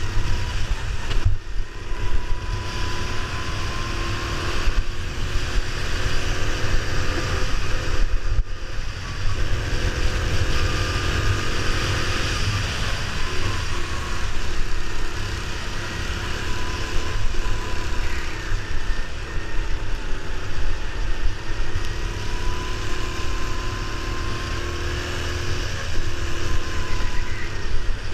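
Go-kart engine running at speed, its pitch rising and falling with the throttle through the corners, with heavy wind buffeting on the kart-mounted microphone.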